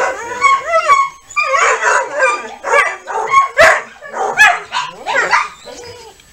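German Shepherd vocalizing in a near-continuous string of short, high, wavering whines and yips, with a few sharper, louder calls in the middle, tailing off near the end.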